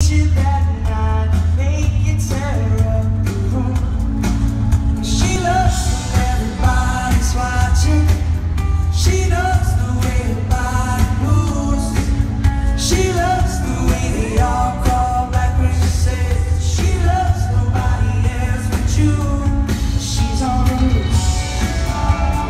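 Live rock band playing with a lead singer, heard from the audience in an arena: drums, guitars and keyboards under the vocal, with heavy, boomy bass.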